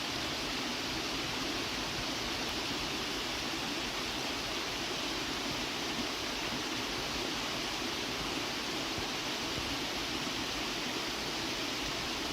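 Creek water rushing steadily, an even hiss of flowing water.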